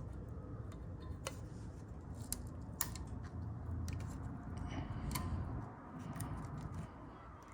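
Light, scattered clicks and taps from hands working on an engine cylinder head while peeling its gasket off, a handful of sharp ticks a second or so apart.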